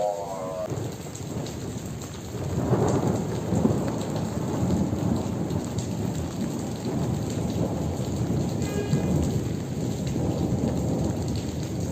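Heavy rain pouring down during a violent thunderstorm, with thunder rumbling; the downpour and rumble swell louder about two and a half seconds in and keep on.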